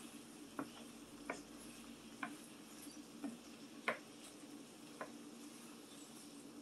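Light, irregular clicks and taps, roughly one a second, from a pan of potatoes and vegetables in cheese sauce cooking on the stove, over a steady low hum.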